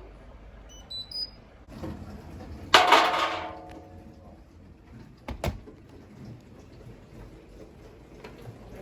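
A quick run of short electronic beeps, then a loud clunk with a brief metallic ring about three seconds in, followed by two sharp clicks: washing machine controls and mechanism at the start of a programme.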